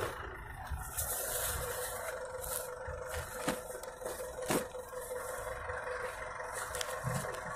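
Steady hum of minibus engines idling, with two sharp knocks about three and a half and four and a half seconds in.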